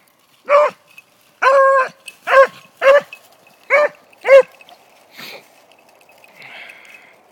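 Beagle barking six times in quick succession, the second bark drawn out into a short bay, then falling quiet.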